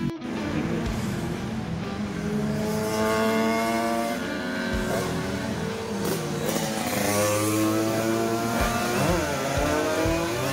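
Motor vehicles passing on a road, engines running with a pitched note that shifts up and down through the middle.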